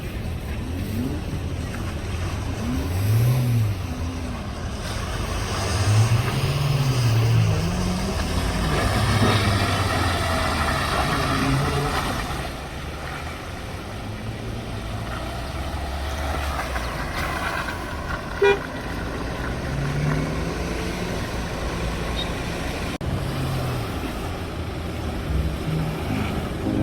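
Off-road vehicle engines revving up and down repeatedly under load, with a short car horn honk about 18 seconds in.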